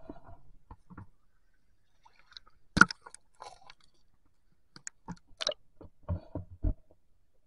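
Rubber hip waders stepping on riverbed stones, heard underwater: scattered crunching clicks and knocks of stone on stone, the loudest about three seconds in and a cluster of several, some with dull thuds, near the end.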